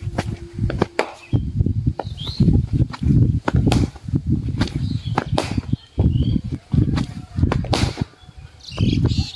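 Repeated low thuds on the microphone with scattered sharp clicks, and a sharp crack of a cricket bat striking the ball about eight seconds in.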